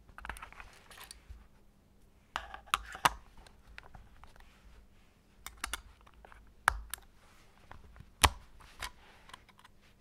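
Plastic back cover of a Nokia 7650 phone being pressed and slid open by hand: fingers rubbing on the plastic, with a scatter of sharp plastic clicks, the loudest about eight seconds in.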